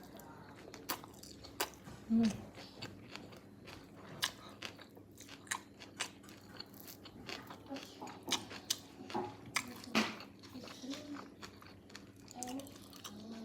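Close-miked eating: a person biting and chewing food with crunchy bites, heard as irregular sharp crackles and clicks.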